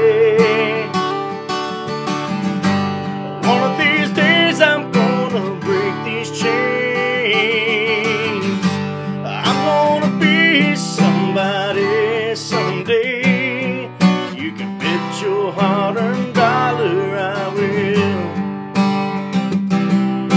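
Acoustic guitar strummed steadily through an instrumental break of a country song, with a wordless melody line wavering with vibrato above the chords.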